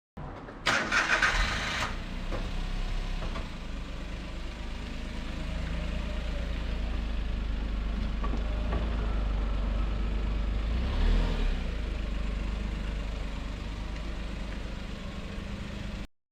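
An engine starting with a short loud burst about a second in, then running steadily at idle until it cuts off near the end.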